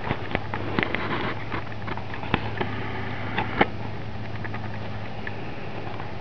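Crunching steps on dry gravel and leaves: scattered clicks and crackles, with two sharper ones around two and a half and three and a half seconds in, over a steady low hum.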